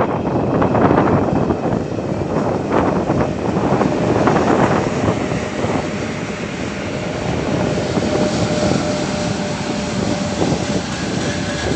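Four-section set of 2ES5K Ermak electric locomotives passing close as it pulls away with a freight train: a loud, steady mechanical din of traction motors, cooling fans and rolling wheels, with a steady whine joining about halfway.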